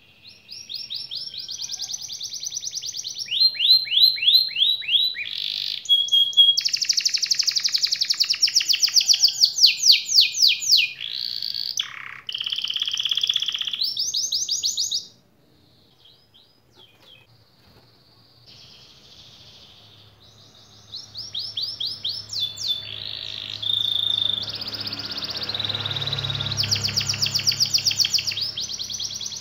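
Domestic canary singing: long runs of fast trills, each a rapid string of repeated notes at changing pitches, broken by a near-quiet pause of about five seconds midway before the song resumes.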